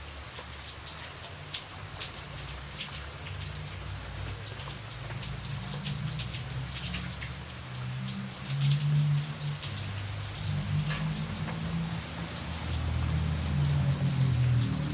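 Light rain falling, with many separate drops ticking on a surface over a steady hiss. Under it a low rumble swells about halfway through and again near the end.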